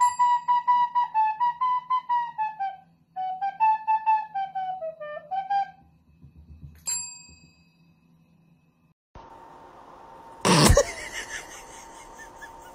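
A short tune played on a small flute in two phrases, followed by a single ring of a desk service bell struck by the dog's paw. After a pause, a steady hiss with a faint hum, and one brief loud burst of noise near the end.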